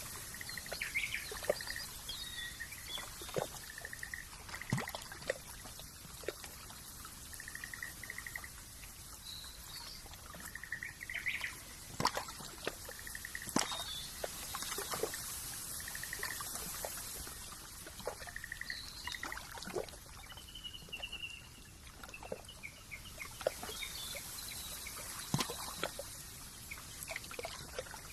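Layered nature ambience: water trickling with a steady hiss and scattered sharp drips and ticks, over repeated short trilling animal calls every second or two.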